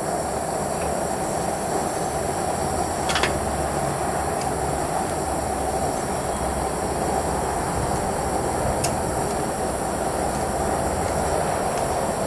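Gas burner of a small melting furnace running with a steady rushing noise, and a few sharp metal clinks, about 3 and 9 seconds in and near the end, from tongs and pliers handling the hot graphite mold.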